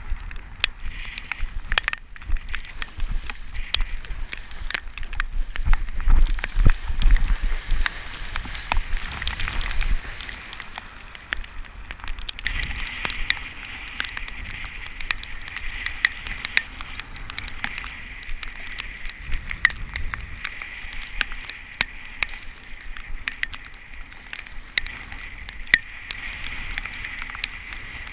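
Rough sea water splashing and sloshing against a sea kayak, with spray crackling in many sharp clicks and a steady hiss of wind-blown chop. Gusts of wind rumble on the microphone, loudest about six to eight seconds in.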